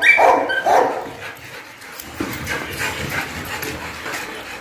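Black pit bull barking twice in quick succession, excited and demanding the toy held up out of reach, then going much quieter with faint whimpering.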